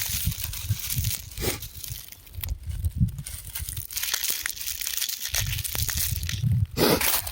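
Rock crumbling: irregular gritty crackling and crunching, with dull low rumbles coming and going.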